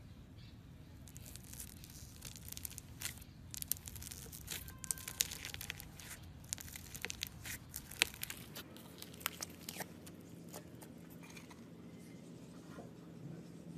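Floam slime, slime packed with foam beads, crackling and popping as fingers press and knead it in a plastic tub. It gives many small crisp pops, dense for most of the time and thinning out near the end.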